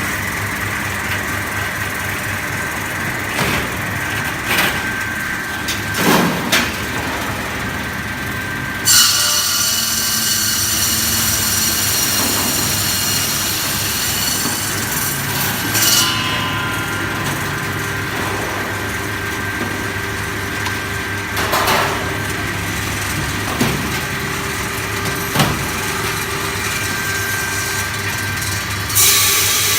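Electric 12-blade ice-block cutting machine running with a steady motor hum and scattered knocks. From about nine seconds in to sixteen seconds, and again near the end, a loud high hiss joins it.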